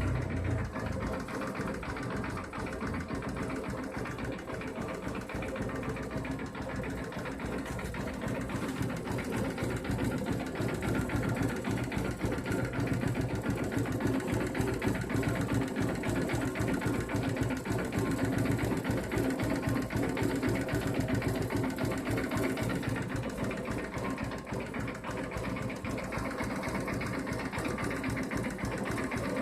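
Engine running steadily with a fast, even clatter throughout: an unidentified noise after a full engine rebuild, which the owner says is not tappet noise and not a rocker-arm problem.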